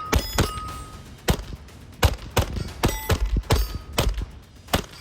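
A Hammerli Forge H1 1911-style .22 LR pistol firing a string of about nine shots at an uneven pace, here with Remington Golden Bullet 36-grain hollow points. Several shots are followed by a short metallic ring from steel plates being hit.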